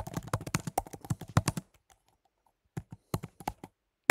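Typing on a computer keyboard: a fast run of key clicks for nearly two seconds, a short pause, then a few more keystrokes and a harder click at the very end.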